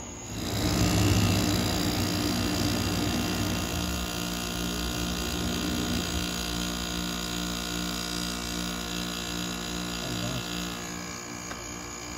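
1983 Gibson Slumbermaster window air conditioner running: the hum of its Matsushita rotary compressor and the rush of its blower. The sound drops away right at the start, swells back up within the first second, and then settles into a steady hum.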